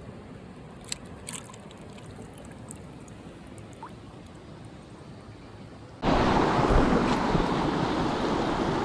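Mountain stream water running: a faint, even rush with a couple of small clicks at first, then suddenly much louder about six seconds in.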